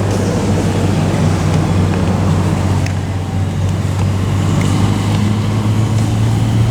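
A motor running steadily with a low, even hum, rising slightly in pitch near the end.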